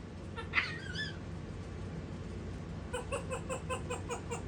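African grey parrot calling: a short squeak with a whistle falling in pitch about half a second in, then near the end a rapid run of short laugh-like calls, about five a second, its mimicked "evil laugh".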